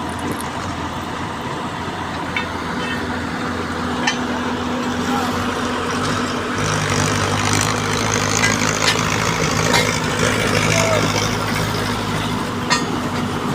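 Heavy machine engine running steadily, its tone deepening and strengthening about six and a half seconds in, with a few sharp metallic clicks over it.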